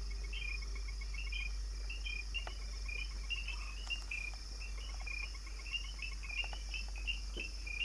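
Night forest chorus of insects: a steady high drone under rapid, short, high chirps that repeat in small stepped groups throughout.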